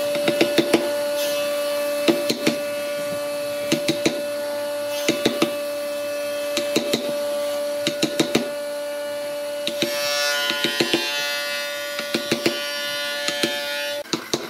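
Wooden mallet striking a chisel, in quick groups of three or four blows about every second and a half, chopping out a pocket in a wooden block. Underneath is a steady held tone that cuts off suddenly near the end.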